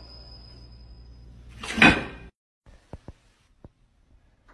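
A low steady hum, then a single loud knock with a short ring about two seconds in. After that come only a few faint clicks.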